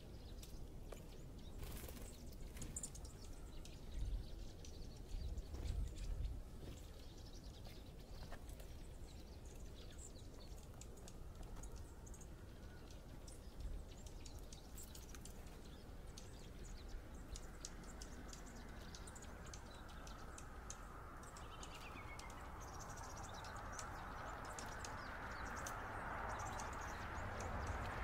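Small songbirds at a seed feeder giving short, high, faint chirps scattered throughout. There are a few low bumps about four to six seconds in, and a rushing noise swells over the last several seconds to become the loudest sound.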